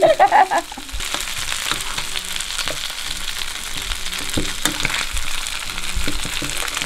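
Oil sizzling steadily in a frying pan with masala-coated stuffed mussels, with scattered clinks and scrapes of a spoon.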